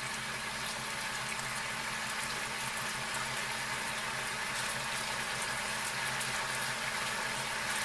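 Honey-soy marinade bubbling and sizzling in a frying pan around beef skewers: a steady crackling hiss with small pops.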